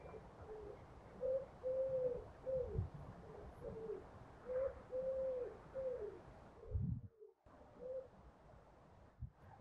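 A pigeon cooing repeatedly in phrases of a few notes, with a longer held note in the middle of each phrase. Two soft low thumps come about three and about seven seconds in, and the sound cuts out briefly just after the second.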